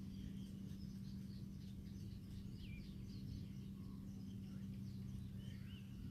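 Faint birds chirping and twittering here and there over a steady low hum and outdoor background noise.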